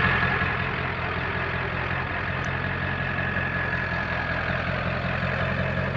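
Ford F-350's 7.3-litre Powerstroke turbo-diesel V8 idling steadily.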